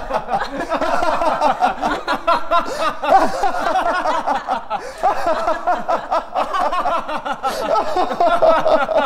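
A group of people, men and a woman, laughing together loudly and continuously.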